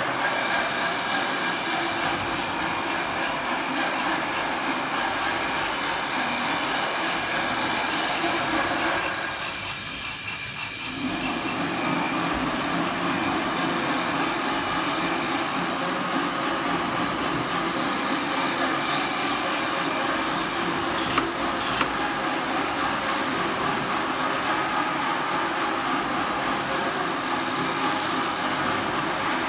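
CNC round-knife fabric cutting machine running, its tool head travelling over the table and cutting cloth: a steady mechanical whir, easing briefly about ten seconds in, with two sharp clicks a little past twenty seconds.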